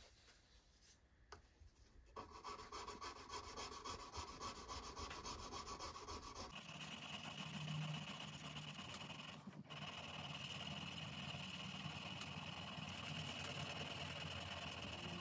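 A small flat abrasive stone is rubbed back and forth by hand along the bevel of a steel knife blade, giving a rhythmic rasping as the edge is hand-finished. About halfway through, a steady hum joins in.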